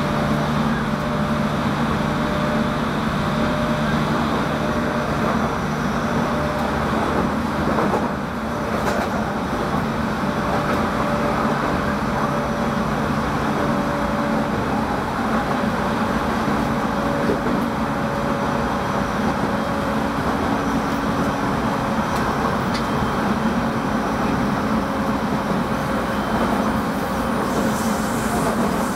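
Running noise inside a JR East 209-500 series commuter train's motor car: a steady rumble of wheels on rail with the level hum of its GTO-VVVF traction motors.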